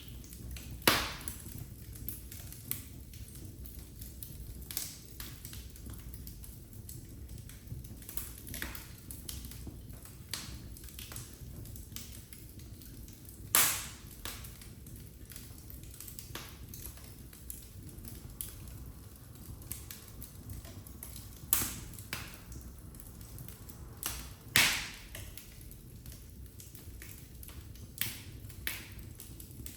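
Wood fire crackling in a fireplace: irregular small pops and clicks over a steady low flame noise, with a handful of louder, sharper snaps scattered through.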